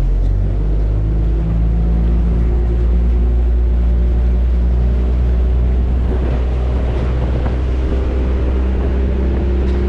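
Tour boat's engine running at a steady low drone, with wind and choppy water noise over it.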